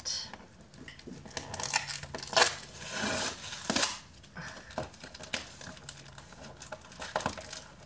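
Packing tape being pulled and torn off a taped package box, in irregular bursts of ripping and crinkling, the loudest rips in the middle.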